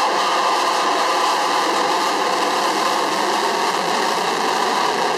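F-35A fighter jet's Pratt & Whitney F135 turbofan running in afterburner: a loud, steady rushing jet noise that holds level throughout.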